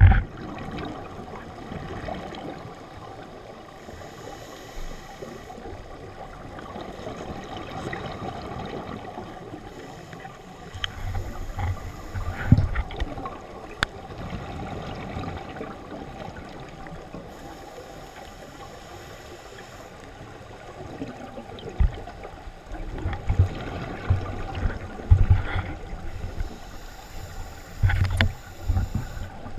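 Scuba diver's exhaled bubbles from a regulator, heard underwater through a camera housing: low, gurgling bursts of bubbles about 11 to 13 seconds in and again repeatedly from about 22 seconds on, over a steady muffled background.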